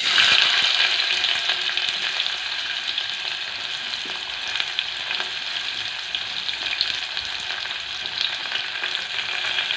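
Chopped onion dropped into hot mustard oil with cumin seeds in a steel pot, sizzling at once: loudest in the first second, then a steady frying hiss with small crackles.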